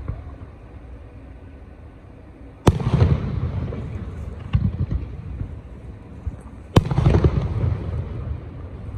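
Fireworks shells bursting overhead: two loud booms about four seconds apart, each followed by a rolling echo. A smaller pop falls between them.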